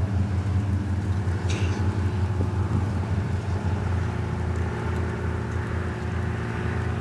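Low, steady engine rumble with an uneven throb that eases slightly about halfway through.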